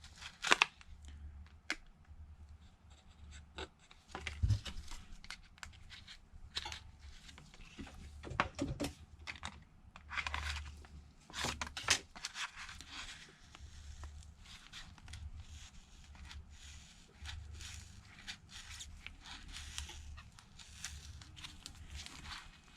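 Plastic opening tool scraping and clicking around the heat-softened back glass of a Samsung Galaxy Note 5, the glass's adhesive peeling away, in irregular small clicks and scrapes.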